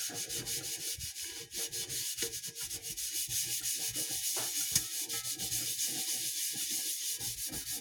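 A scrubbing disc loaded with cleaning paste scouring a soot-blackened pot, rubbed back and forth in quick, even strokes, several a second, to remove campfire soot.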